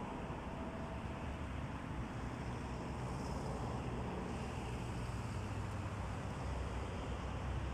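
Steady low outdoor background rumble with an even hiss above it, with no distinct events.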